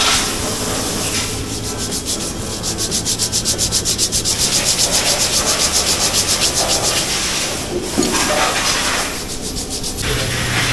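Motorcycle brake pads being scrubbed clean of carbon deposits, in fast back-and-forth rubbing strokes of several a second; the carbon is the cause of a squeal when braking. There is a brief sharp tap about eight seconds in.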